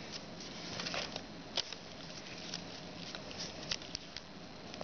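Foil origami paper rustling and crinkling under the fingers as it is folded and creased: a faint rustle with a few sharp crackles scattered through.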